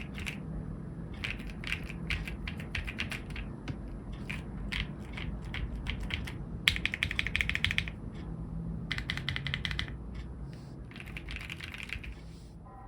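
Typing on an Akko ACR75 v2 mechanical keyboard with Kaisya switches: uneven bursts of keystrokes, with runs of very rapid presses about seven seconds in and again about nine seconds in, tapering off near the end.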